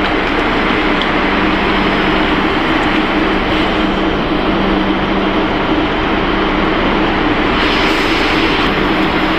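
Corn ring snack pellet extrusion line machinery running: a loud, steady mechanical din with a constant low hum.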